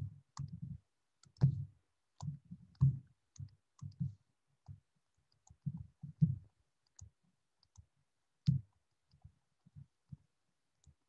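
Irregular clicks and soft taps from writing by hand on a computer whiteboard: pen-tool clicks and strokes, a few a second, uneven in loudness.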